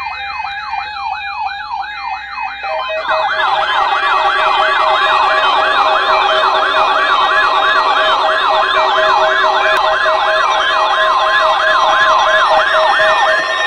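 Several NOAA weather radios sounding their alert alarms together: an electronic warbling siren sweeping up and down nearly three times a second. About three seconds in, more alarms join with a second warble, a steady tone and fast beeps. The warbling stops just before the end.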